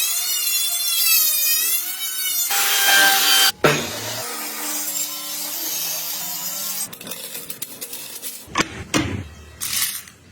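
Woodworking tools cutting and working wood: a motor whine that wavers in pitch, a short burst of cutting noise, a steadier motor hum, then a few scattered knocks near the end.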